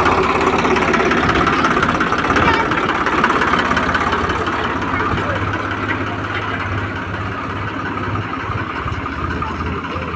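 Heavy machine's diesel engine running steadily at idle, with voices talking faintly underneath.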